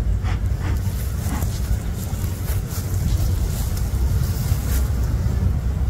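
Wind buffeting the microphone: a steady low rumble, with a few faint clicks.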